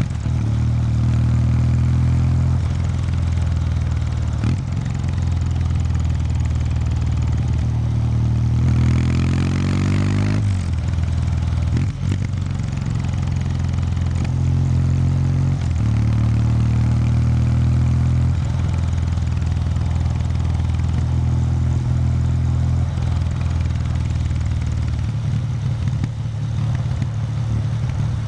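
Kawasaki W800 Street's air-cooled parallel-twin engine and stock exhaust running steadily under way. About nine seconds in, the note rises in pitch for a couple of seconds, then drops back suddenly and settles into a steady note again.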